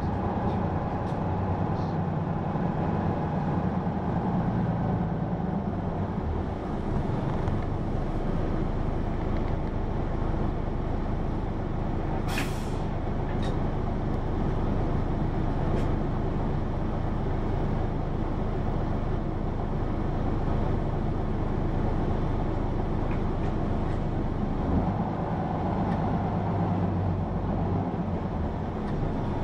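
Hino PA-KR234J1 diesel city bus heard from on board while driving: the engine pulls hard for the first few seconds, eases off, and picks up again near the end. A short, sharp hiss of air from the brakes comes about twelve seconds in.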